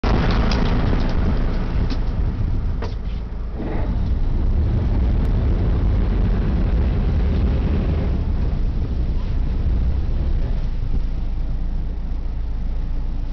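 Steady low rumble of a sportfishing boat under way: engines running and water rushing past the hull, with a few short clicks in the first few seconds.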